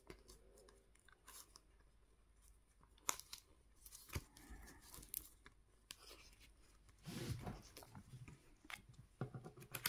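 Faint rustling and crinkling of paper banknotes and envelopes being handled and slipped into a cash-envelope binder, with a few light taps.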